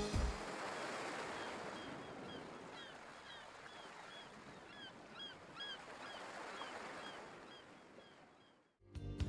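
Sea surf washing in, an even rushing that slowly fades away near the end. Over it, short chirping bird calls repeat from about a second and a half in.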